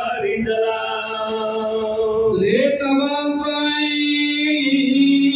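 Unaccompanied male chanting of a Pashto mourning lament (nauha) over microphones, in long held notes, with the voice gliding up to a higher note about two seconds in.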